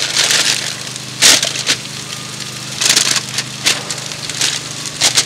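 Aluminium-foil packets of fries being flipped with metal tongs on a barbecue grill: several short bursts of crinkling foil and tongs scraping, over a steady low hum.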